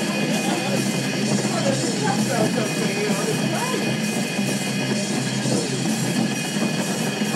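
Rock music with drums and guitar playing steadily.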